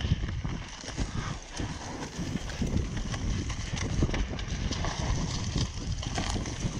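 Mountain bike riding fast down a rough forest trail: tyres rolling over dirt and leaves under a low rumble, with irregular knocks and rattles as the bike goes over bumps.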